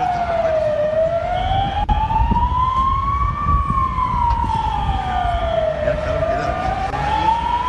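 Emergency vehicle siren wailing, its pitch sliding slowly down and back up about every five seconds. A second, higher siren sounds fainter behind it, over a steady low rumble of noise.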